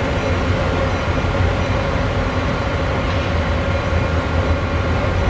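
MARC MP36PH-3C diesel locomotive, with its EMD 16-cylinder two-stroke engine, running steadily as it rolls slowly through the rail yard: a continuous low drone with a steady higher hum over it.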